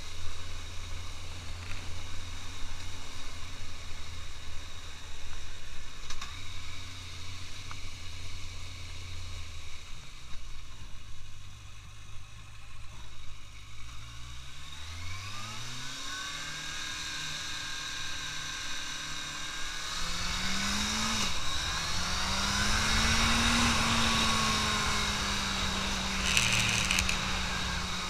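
Suzuki GSX650F's inline-four engine heard from the rider's seat. It runs low and steady at first, then rises in pitch as the bike accelerates about halfway through, dips briefly near the end, and settles into a higher steady note.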